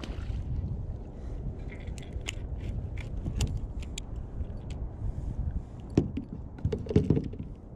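A small largemouth bass being reeled in and swung aboard a plastic kayak: a run of sharp clicks and rattles, then two heavier thumps about six and seven seconds in, over a low wind rumble on the microphone.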